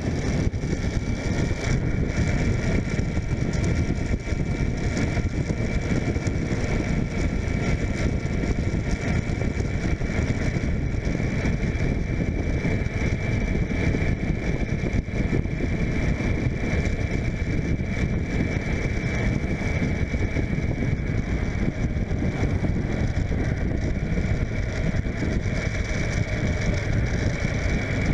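Suzuki GSF600 Bandit's inline-four engine running at a steady cruise, mixed with wind rumble on the microphone, with a steady faint high whine over it.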